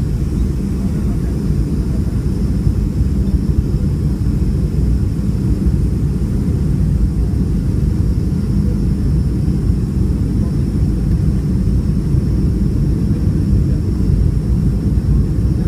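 Boeing 757-200 airliner descending to land, a steady low rumble of engine and airflow noise with a faint steady high whine above it.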